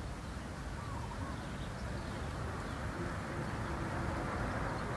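Steady low outdoor rumble, growing slightly louder toward the end, with a few faint bird calls.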